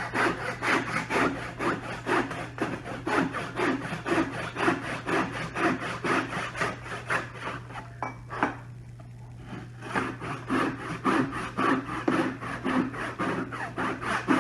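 Handsaw cutting a kerf into the wooden fence of a bench hook, one of its 45-degree saw-guide cuts. Even back-and-forth strokes come about three a second, with a short pause a little past halfway before the sawing picks up again.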